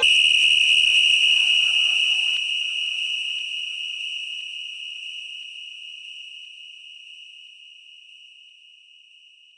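DJ sound-effect ringing tone: one high, steady pitch that starts suddenly and fades slowly for about nine and a half seconds, then cuts off. A short noisy tail dies away under it in the first two seconds.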